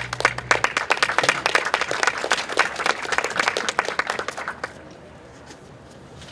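Audience applauding at the end of a song, dense clapping that thins out and stops about three-quarters of the way through. In the first half second the band's last low note dies away under it.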